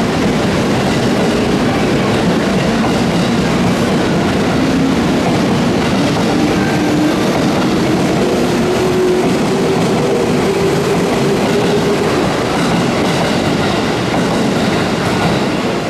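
JR West 221 series electric train pulling out and gathering speed past the platform: a steady loud running noise of wheels on rails, with a faint rising whine from the motors as it accelerates.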